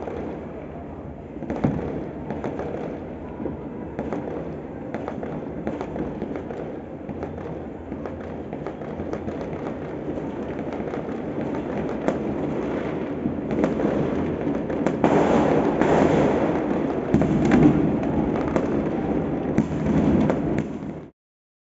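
Many fireworks going off across a city, a dense, continuous crackle of pops and bangs that grows louder about two-thirds of the way in and cuts off suddenly near the end.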